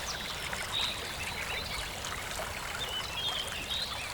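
Steady rush of a small forest stream and waterfall flowing over rocks, with birds chirping and whistling above it in short, scattered calls.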